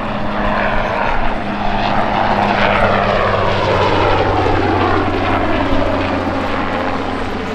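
Westland Wessex helicopter passing low overhead: a loud, steady mix of engine and rotor noise, its pitch falling over the middle seconds as it goes by.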